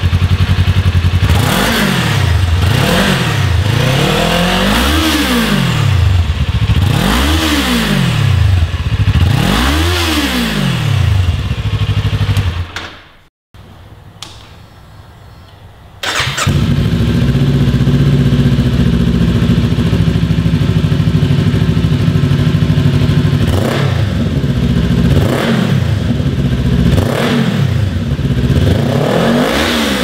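Kawasaki Ninja 400 parallel-twin on its stock exhaust, idling and blipped up and down about four times. After a short quieter gap near the middle, the same engine runs on an M4 carbon slip-on exhaust, idling and then revved in several more blips.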